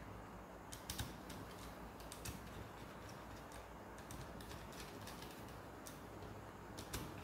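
Faint scattered clicks and ticks of a screwdriver turning and loosening the terminal screws on miniature circuit breakers in a plastic panel board.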